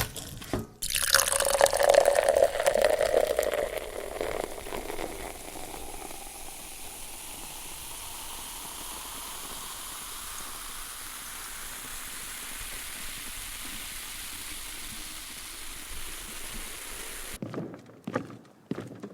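Champagne poured into a glass: a loud foaming rush about a second in that settles within a few seconds into a steady fizz of bursting bubbles, cut off abruptly near the end.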